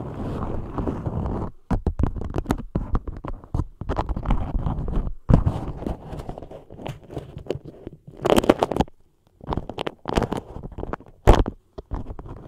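Beeswax food wrap over a microphone, crinkled, rubbed and scratched with fingers and long nails: dense, irregular crackling and rustling that stops briefly a few times.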